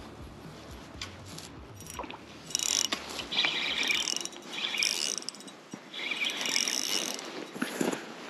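Spinning reel's drag ratcheting out line in three loud bursts of fast clicking, about two and a half, four and a half and six seconds in, as a hooked trout pulls against it, with fainter reel clicks before them.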